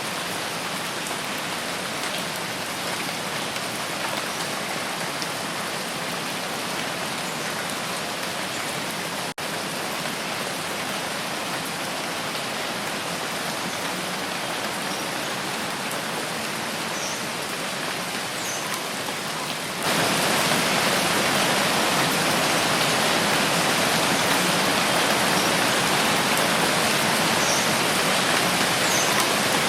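Steady rain falling as an even hiss. The sound cuts out for an instant about nine seconds in, then gets noticeably louder and brighter about twenty seconds in.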